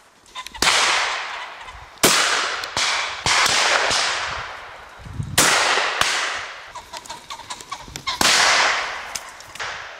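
Browning 725 over-and-under shotgun firing at driven pheasants: five sharp reports, each trailing off in a long rolling echo, two of them in quick succession a little past the middle. Fainter pops sound between them.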